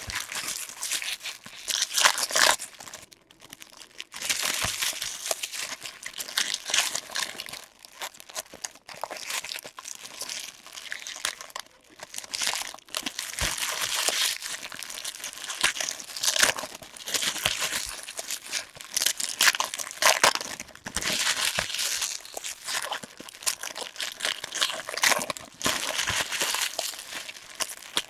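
Plastic trading-card pack wrappers crinkling and tearing as they are opened by hand, in uneven spells with short pauses.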